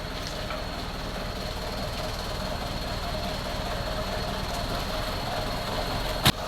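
Isuzu 4HL1 four-cylinder diesel truck engine idling steadily, its valve train repaired with the missing valve spring lock on cylinder 4 replaced. A single sharp click near the end.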